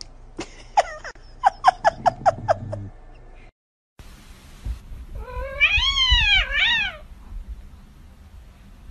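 A cat gives a quick run of about eight short, sharp cries. After a brief silence, a cat lets out a long, wavering meow that rises and falls in pitch, followed at once by a shorter one.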